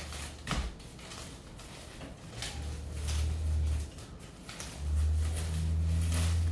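Food wrapping being handled and pulled open, with short crinkles and rustles, the sharpest about half a second in. A low hum comes in twice, in the middle and again for the last second and a half.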